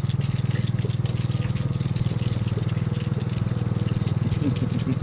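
Small engine of a barrel train's towing vehicle running steadily at low speed, a continuous low drone with a fast even pulse, as the ride rolls along.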